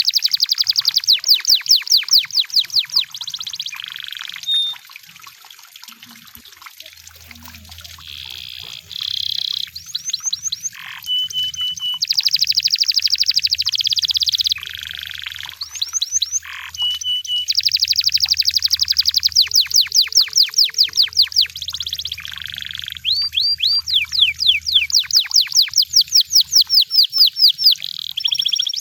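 Canary singing: long, rapid trills of quickly repeated high notes, broken by short steady whistled notes and brief pauses.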